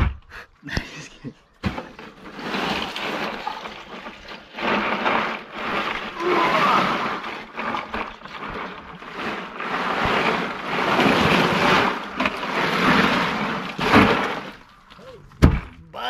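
A giant trevally being cleaned: long uneven stretches of noisy rushing and scraping, with a sharp knock at the start, another about two seconds in and one near the end.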